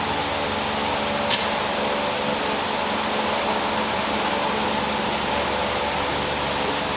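Electric fan blowing steadily with a low hum, and a single brief sharp strike about a second in as a UCO stormproof match is struck.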